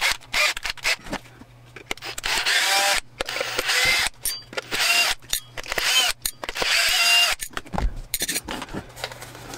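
Cordless drill-driver with a home-ground triangular bit backing triangle-head screws out of a plastic plug-socket housing. It runs in about four short bursts, its motor whine rising and falling, with clicks in between.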